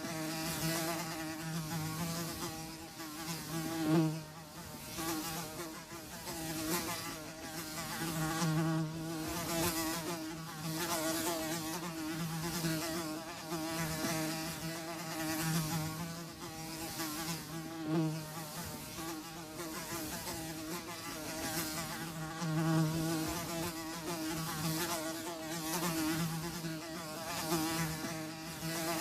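Flies buzzing steadily, several wingbeat drones overlapping and swelling and fading every second or two as they come close and move off.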